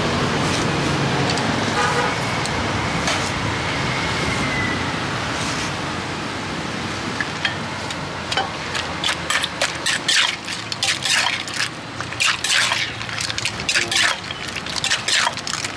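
Wooden pestle and spoon knocking against a clay mortar in quick, irregular strokes as green papaya salad is pounded and tossed, starting about halfway through. Underneath is steady street traffic noise, with a vehicle horn sounding once, briefly, about two seconds in.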